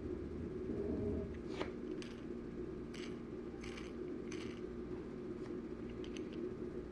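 Faint clicks and light rattles of a small Hot Wheels die-cast toy being handled and its movable part worked, about six separate ticks spread through, over a steady low hum.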